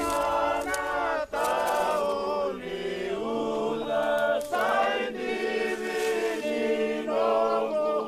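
A group of voices singing a chant together, in phrases of a second or two.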